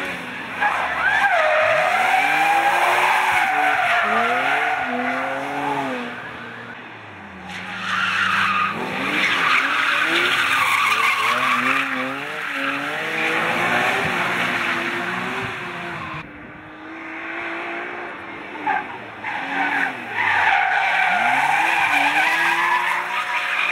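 BMW M3 E46 drifting: the engine revs rise and fall as the tyres squeal through each slide. This comes in three loud passes, with quieter dips about six and sixteen seconds in.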